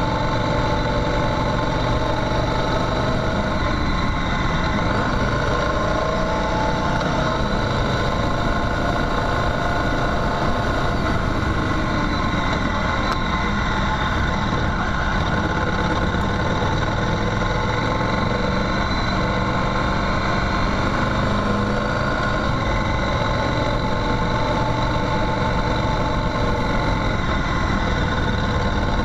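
Motorcycle engine running steadily at low, even revs, its pitch shifting slightly now and then with the throttle.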